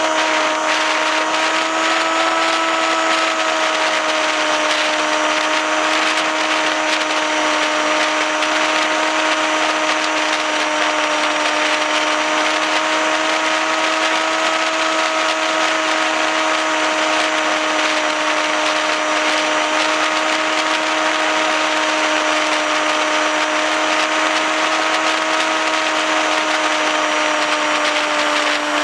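Electric motor and propeller of a 480 mm RC flying wing running at steady cruise throttle: a steady whine, with wind rushing over the wing-mounted camera's microphone. The pitch dips slightly near the end.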